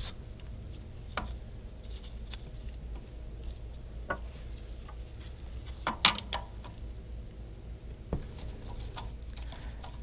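A handful of light metallic clicks and taps, the loudest about six seconds in, as a mini lathe's cast-iron tailstock is set on a 1-2-3 block and clamped in place, over a low steady hum.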